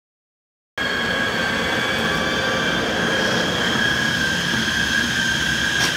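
Czech Railways class 380 (Škoda 109E) electric locomotive rolling slowly past, starting suddenly about a second in: a steady high-pitched whine with a second, higher tone above it, over a low rumble.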